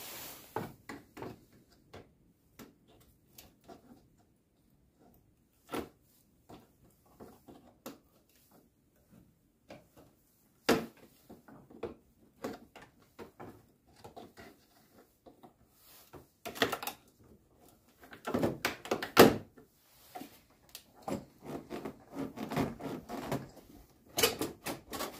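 Plastic intake hoses and air-duct parts in a car's engine bay being worked loose and handled with a screwdriver, engine off: scattered clicks and light knocks, with a louder clatter of plastic about two-thirds of the way in and again near the end as the intake duct is lifted away to reach the throttle body.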